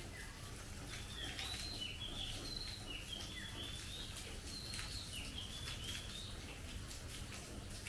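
A songbird calling in a quick string of short whistled notes, bending up and down in pitch, from about a second in until near the end. Under it, a steady hiss of monsoon rain falling on the foliage.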